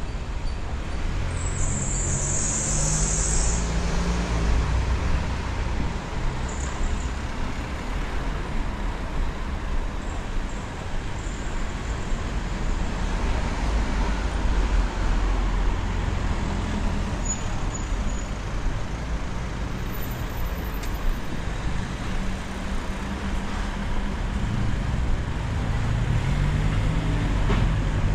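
City street traffic: the steady rumble of car and bus engines and tyres, with a short high hiss about two seconds in.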